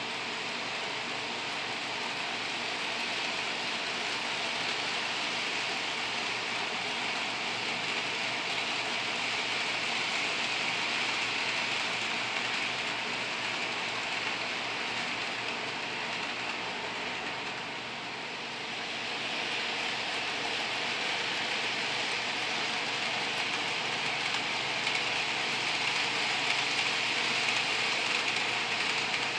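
HO scale Athearn Blue Box GP40 model locomotive running with a short freight train: a steady whir of its motor and gears with the cars rolling on the track. It dips briefly a little past the middle, then grows slightly louder near the end.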